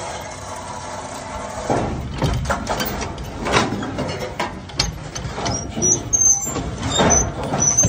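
Chevrolet Impala SS being rolled nose-first up onto a car trailer: a run of irregular clunks and knocks with metal creaking and brief high squeaks, after a steady engine hum in the first couple of seconds.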